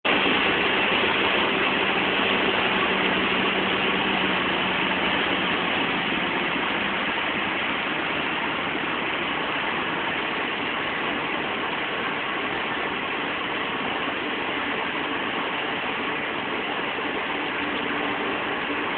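Steady road, wind and engine noise inside a car's cabin while it cruises on a highway, with a faint hum that fades out about six or seven seconds in.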